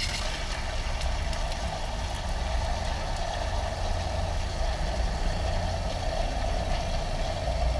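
Pressurised water rushing steadily out of a rusted-through hole in an underground cast iron supply pipe into the flooded pit, with a steady low rumble beneath it.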